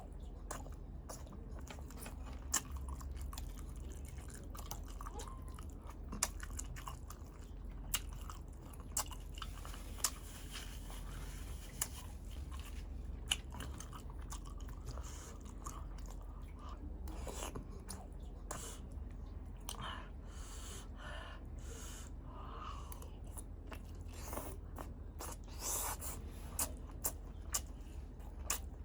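Close-miked chewing of balut (boiled fertilised duck egg): wet mouth clicks and smacks scattered throughout, a few sharper ones standing out, over a steady low hum.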